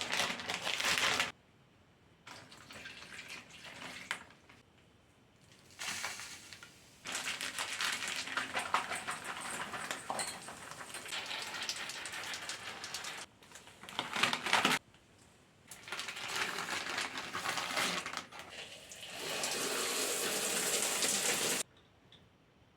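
Running water hissing and spraying in several separate stretches, each starting and stopping abruptly, with short quiet gaps between them.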